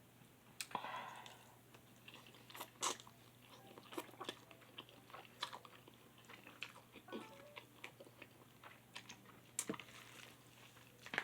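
A person chewing a mouthful of spicy instant noodles, with scattered small mouth clicks and smacks.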